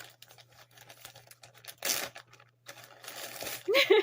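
Small clicks and rustles of a measuring spoon and a baking-soda container being handled, with a louder scrape about two seconds in and a short pitched squeak just before the end.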